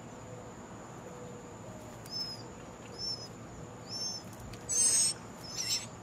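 Songbird nestlings calling from the nest: short high chirps about once a second starting about two seconds in, then two louder, harsher begging bursts near the end. A thin steady high whine runs underneath.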